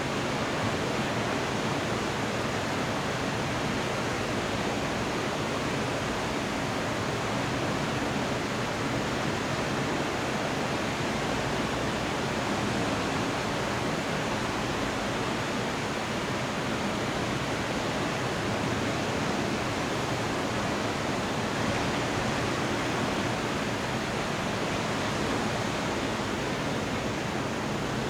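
Rain falling steadily during a thunderstorm, an even hiss with no thunderclap in it.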